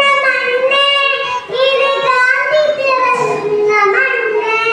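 Young girl singing solo into a microphone, holding long notes that slide and bend in pitch in phrases of about a second or more.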